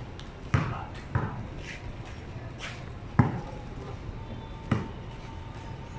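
Basketball bouncing on a paved court: four separate, irregularly spaced thumps, the loudest about three seconds in.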